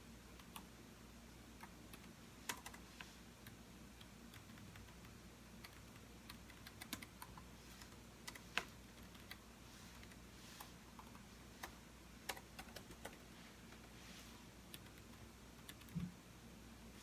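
Computer keyboard being typed on: irregular, faint key clicks in short runs and pauses over a low steady hum, with a soft thump near the end.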